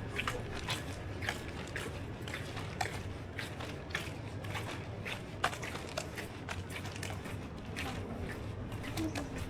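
Footsteps at walking pace, about two steps a second, over a steady low hum.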